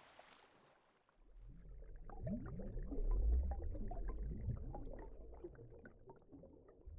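Underwater sound effect: bubbles gurgling over a deep rumble, starting about a second in, swelling, then fading toward the end, after the tail of a hissing whoosh at the very start.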